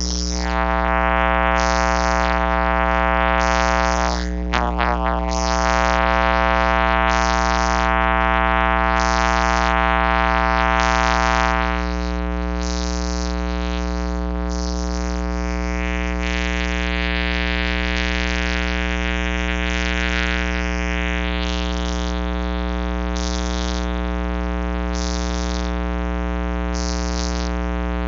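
Background electronic music: held synthesizer chords with short high percussive hits about once a second.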